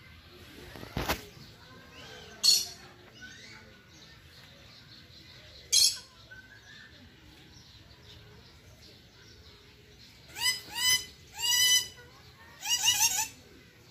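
Common hill myna calling: two short harsh screeches a few seconds apart, then near the end a quick series of loud whistled notes in several bursts. A sharp click about a second in.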